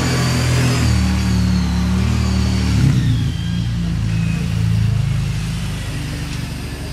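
Kawasaki Brute Force 750 ATV's V-twin engine running as it drives around, its pitch rising and falling with the throttle. It grows somewhat fainter near the end as the machine moves off.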